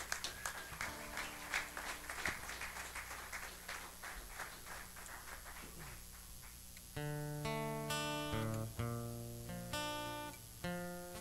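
Audience applause in scattered claps for the first several seconds. About seven seconds in, an acoustic guitar starts the intro of a song, picking sustained chords.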